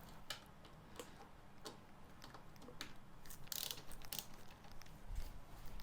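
Hand tools working on motorcycle front-end bolts as they are slackened: faint, scattered metallic clicks and ticks, with a short scrape about three and a half seconds in and a few soft thumps near the end.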